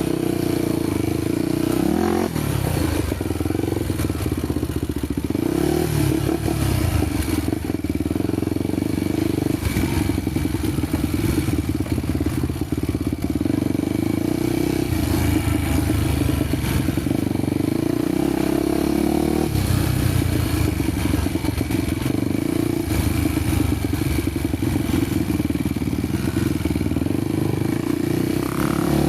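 Honda XR 250 Tornado single-cylinder four-stroke engine running under way on a dirt trail, its engine note rising and falling with the throttle several times.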